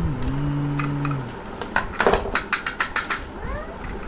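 A quick run of sharp plastic clicks and clatters as the parts of a manual vegetable chopper are handled and fitted together for its screws to be tightened, after a low hum held for about the first second.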